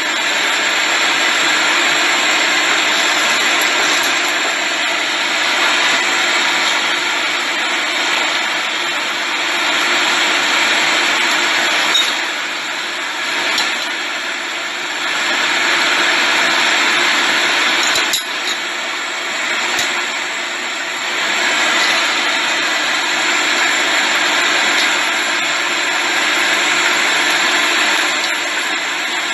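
A loud, steady blower-like roar with a low hum runs under chicken wings braising in a stainless pan. Metal tongs click against the pan a few times around the middle.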